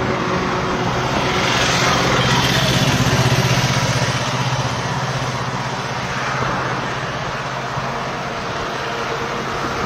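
A motor vehicle's engine running nearby, a steady low hum over street noise, growing louder about two seconds in and easing off after about four seconds.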